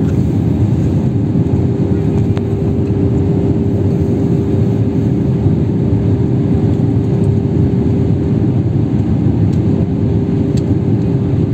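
Cabin noise of an Airbus A320-family jet airliner in flight, heard from a window seat: a steady, loud rumble of engines and airflow with a constant hum through it.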